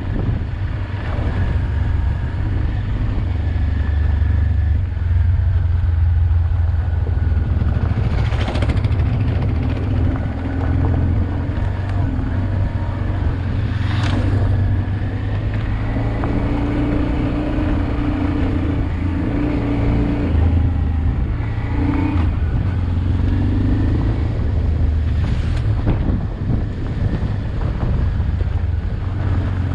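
Honda Transalp XL600V's V-twin engine running at a fairly steady low speed as the bike is ridden, with three sharp knocks along the way.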